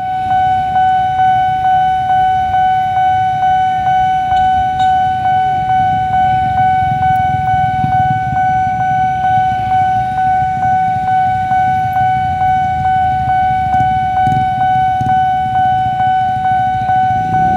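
Railway level-crossing warning alarm sounding: one steady high tone that pulses about three times a second, signalling an approaching train as the barrier closes. Motorcycle engines idle and rumble underneath.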